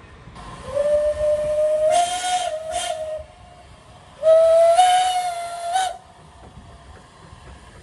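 Steam whistle of an HG 3/4 rack steam locomotive blown twice: a long blast of nearly three seconds, then a shorter one of under two seconds. Each blast slides up in pitch as it opens and steps a little higher partway through.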